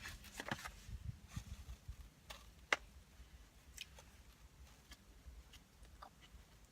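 Quiet close-up chewing of food, with soft low thumps at first and a few scattered sharp mouth clicks, one louder than the rest a little under three seconds in.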